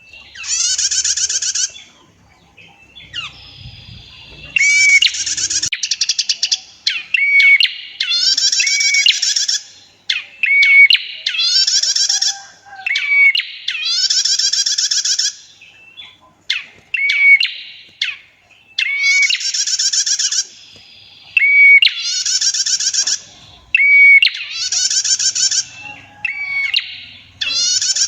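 Female prinia (prenjak) singing: about nine long, buzzy trills of roughly a second each, repeated every couple of seconds, with short sharp chip notes in between.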